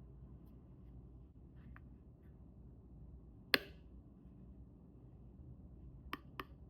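Handling of a plastic phone case and its packaging: one sharp click about halfway, a pair of quick clicks near the end and a few faint ticks, over a low steady hum.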